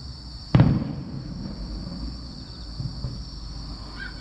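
A single distant firework shell bursting about half a second in: a sharp boom with a low rumbling tail. Two fainter thuds follow around three seconds in. A steady high chirring of insects runs underneath.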